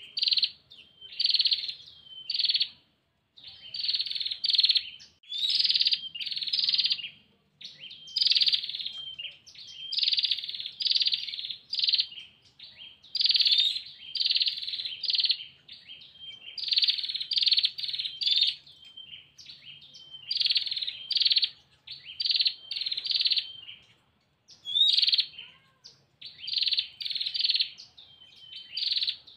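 Female prenjak (prinia) giving its rapid, buzzy trilling call ('ngetir') over and over. The calls come in runs of short bursts of about half a second, with brief pauses between runs. This is the female's call to a male.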